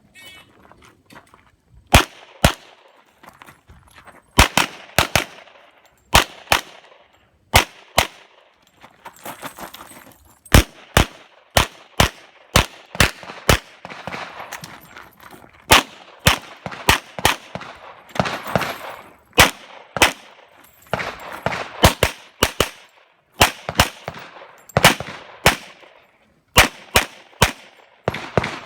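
Handgun fired in rapid strings during a practical-shooting stage, mostly pairs of shots a fraction of a second apart, in groups with short pauses between them.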